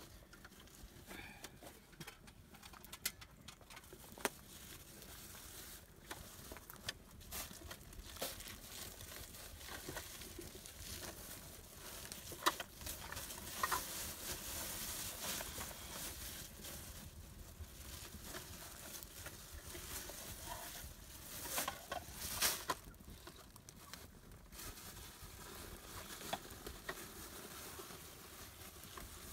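A plastic bag crinkling and rustling as it is handled, loudest in the middle, among scattered small clicks and knocks.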